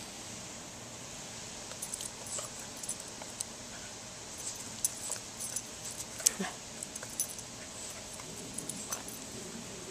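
A Boston Terrier whines once, briefly and with a falling pitch, about six seconds in. Around it are scattered light metallic jingles and clicks, over a steady faint hiss of lawn-sprinkler spray.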